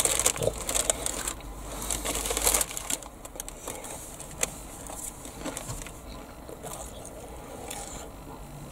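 Biting into and chewing a battered, deep-fried pizza crunch: the crispy batter crunches in a quick run of crackling snaps for the first two or three seconds, then quieter chewing.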